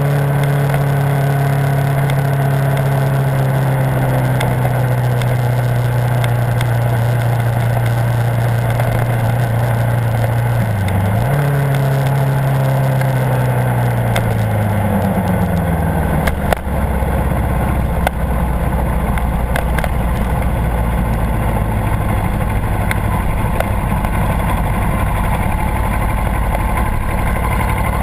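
Kawasaki Ninja 650 parallel-twin engine at low speed, its note holding and then sliding gradually lower as the bike slows, then settling into a steady idle a little past halfway. Two brief clicks come just as it drops to idle.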